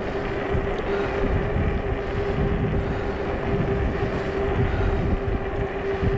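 A fat-tyre ebike towing a trailer rolls along, with rumbling tyre and wind noise and a steady whine.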